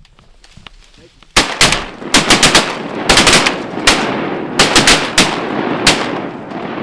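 A volley of shotgun fire from several duck hunters shooting at once: a rapid, overlapping string of more than a dozen shots that starts about a second and a half in, with the echo trailing off near the end.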